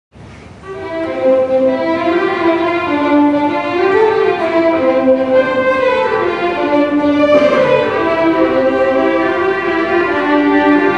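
String ensemble of violins and cellos playing, several bowed parts sounding together in sustained, moving notes. The music comes in right at the start and swells to full level within about a second.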